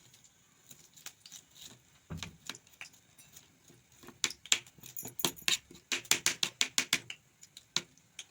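Sharp clicks and taps of hands and utensils working the seeds out of a large chilli, scattered at first, then a quick run of them between about four and seven seconds in.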